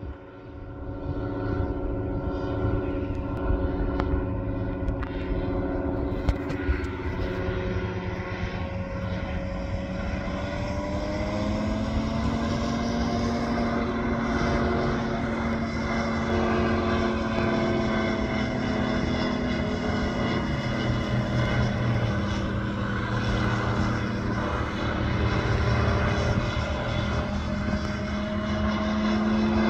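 Phantom ultralight aircraft's engine and propeller droning steadily as it flies overhead. Its pitch rises about halfway through, and it grows louder near the end.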